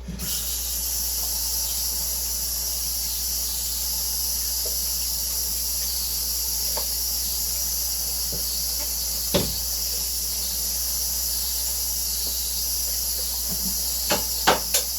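A steady, even hiss that starts abruptly and holds level, with a low hum beneath it, one light knock partway through and a few small clicks near the end.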